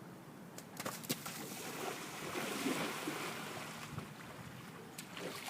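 Splashing and hissing of shallow floodwater under a skimboard run, swelling to its loudest a couple of seconds in and then fading, with a few sharp knocks and wind on the microphone.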